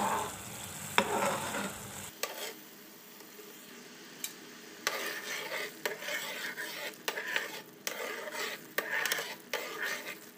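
Malai (milk cream) bubbling and sizzling in a metal pan as it cooks down and gives up its ghee, with a spoon scraping and stirring through it in irregular strokes.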